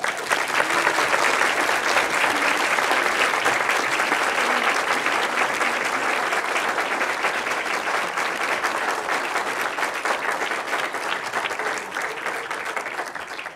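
Large audience applauding, a dense steady clapping that starts all at once and dies away near the end.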